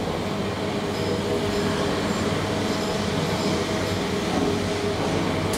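New SMW traction elevator car travelling through its shaft: a steady rumble and hum of the moving cab, even in level, with a single sharp click near the end.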